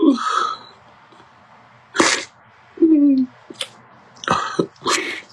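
A man crying: sharp sniffs and short sobbing breaths, with one brief falling whimper about three seconds in.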